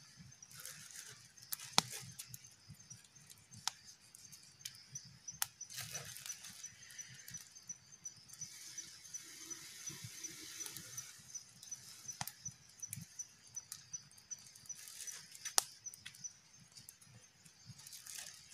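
Scattered sharp knocks and clicks with patches of rustling, over a faint high-pitched ticking that repeats about three times a second through the middle.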